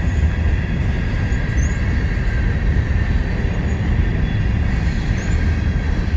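CSX freight train's cars rolling steadily past a crossing, a continuous rumble of wheels on rail, with wind buffeting the phone's microphone.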